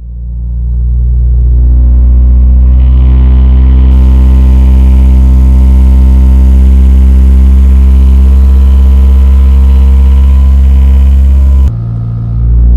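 Toyota bB engine running at a steady speed, a loud low drone with a buzzing vibration, the sign of a deteriorated engine mount passing vibration into the car's interior. It drops away suddenly near the end and then comes back.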